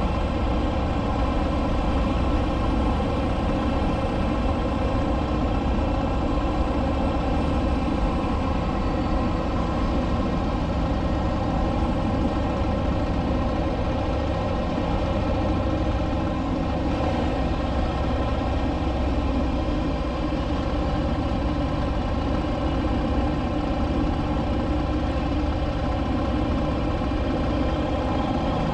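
Motorcycle engine running at a steady cruising speed on the highway, one even engine note that holds throughout, with rushing wind and road noise beneath it.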